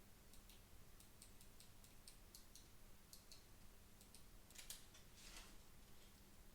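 Faint, irregular small clicks and taps of plastic parts on an opened Corsair computer mouse being handled, with a brief scrape a little over four seconds in.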